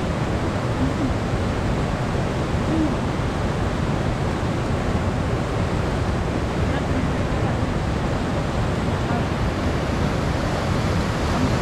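Fast-flowing river rushing steadily, an even wash of water noise.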